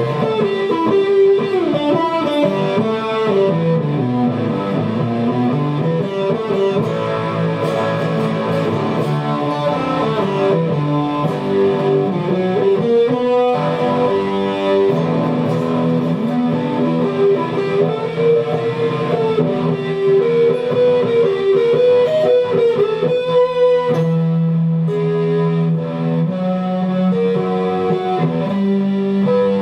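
Guitar music: a meandering electric guitar melody over sustained low notes, playing continuously.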